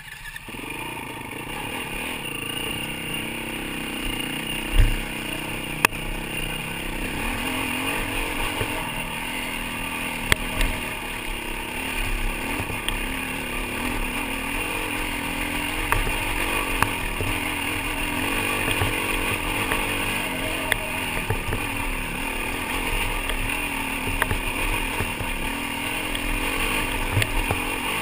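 Yamaha WR450F dirt bike's four-stroke single-cylinder engine running at fairly steady, moderate revs, its pitch wavering up and down over the rough track. A few brief low thumps stand out, the loudest about five and ten seconds in.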